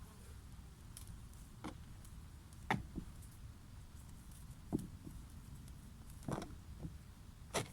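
Scattered light knocks and taps, about five in all, the loudest a little under three seconds in and near the end, over a low steady hum.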